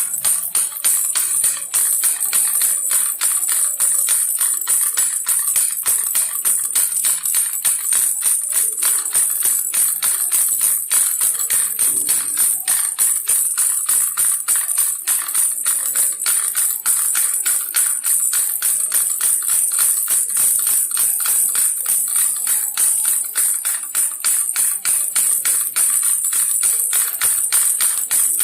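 Baby rattle shaken quickly and steadily: a continuous, high, bright rattling of many rapid, evenly spaced clicks.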